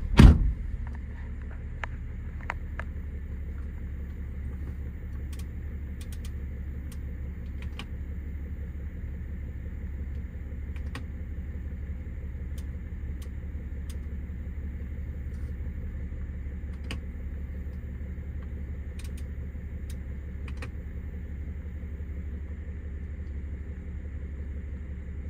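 BMW X5's 3.0-litre six-cylinder turbodiesel starting with a brief loud burst, then idling steadily with a low rumble and a few faint clicks.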